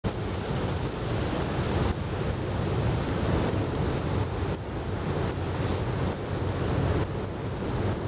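Steady roar of surf breaking on a beach under a typhoon swell, with wind rumbling on the microphone.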